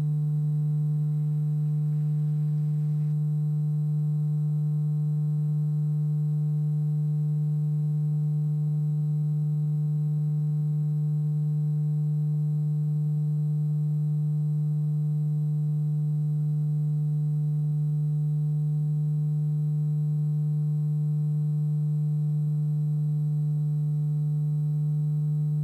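A steady, low-pitched electrical hum, unchanging in pitch and level, with a row of fainter overtones above it.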